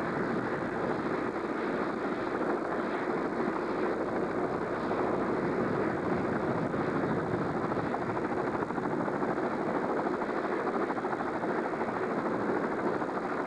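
Navy H-46 Sea Knight tandem-rotor helicopter running on the ground, a steady engine and rotor noise.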